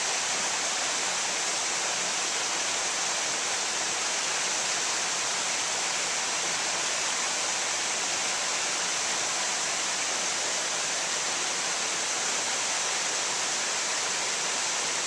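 Small waterfall pouring into a creek pool: a steady, even rush of water.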